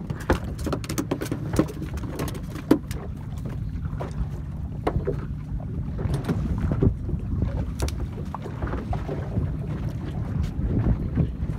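Wind buffeting the microphone and water slapping against a small boat's hull on choppy sea, with irregular sharp knocks and clicks throughout.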